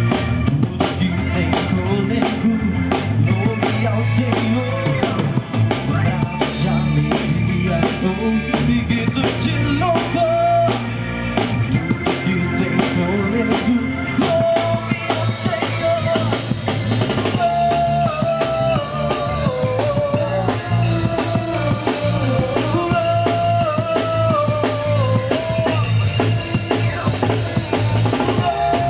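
A band playing a worship song, with a drum kit keeping a steady beat over bass and chords; a melodic lead line comes in about ten seconds in.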